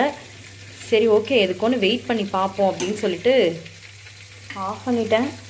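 Butter bubbling and sizzling in a steel pot as it cooks down into ghee, with a steady low hum underneath. A voice talking or singing rises over it twice: from about a second in until past the middle, and again near the end.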